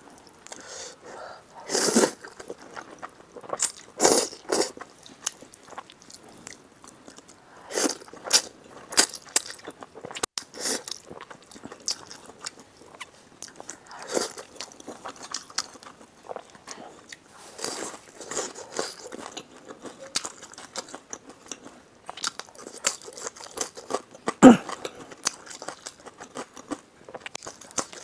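Close-miked chewing and wet mouth smacking from someone eating a meal of spicy fire noodles, with irregular louder bites, the loudest about 24 seconds in.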